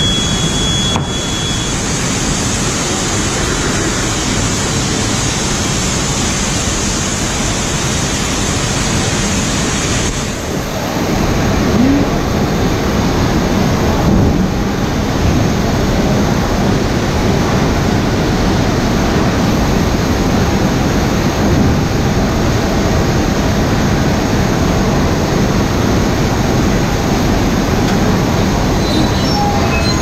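Steam boiler hissing: a loud, steady rush of escaping steam. Its brightest, highest part cuts off about ten and a half seconds in, and the lower rush keeps going.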